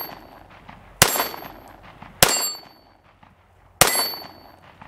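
Three shots from a PSA 5.7 Rock pistol firing 5.7x28mm steel-case rounds, spaced unevenly about a second and a half apart. Each crack is followed by a short metallic ring from a hit steel target.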